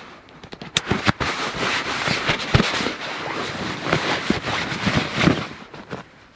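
Close-up rustling and crinkling of a sleeping bag and clothing being handled and stuffed in, with many small sharp crackles. It dies away about a second before the end.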